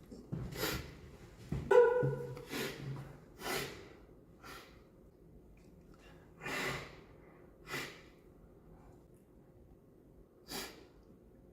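A man sniffling repeatedly: about eight short, sharp nasal inhales at uneven intervals. The loudest, about two seconds in, has a brief voiced catch.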